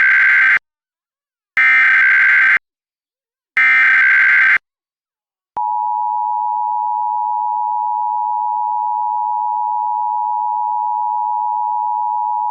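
Emergency Alert System test signal: three roughly one-second bursts of the screechy SAME digital header data, a second's gap between them, followed about five and a half seconds in by the steady two-tone attention signal (853 and 960 Hz).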